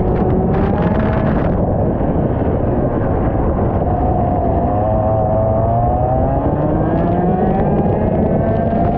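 IAME X30 125cc two-stroke kart engine under load, its pitch climbing steadily as the kart accelerates, easing off once briefly before climbing again. Heavy wind buffeting on the microphone runs underneath.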